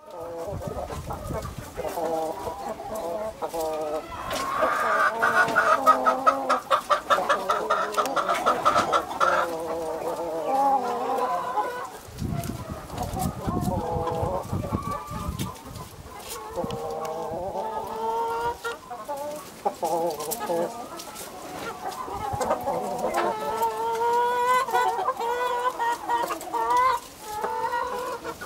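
Brahma hens clucking and calling as a flock, with short repeated calls throughout. A louder, drawn-out run of calls comes between about four and ten seconds in.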